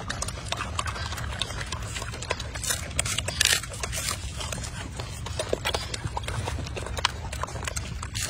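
Golden snub-nosed monkey eating mandarin orange segments close to the microphone: a dense run of irregular small clicks and smacks, over a steady low rumble.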